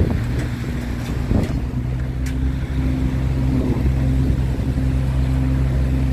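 Mini excavator engine running steadily at idle, a low even hum, with a couple of light clicks about one and two seconds in.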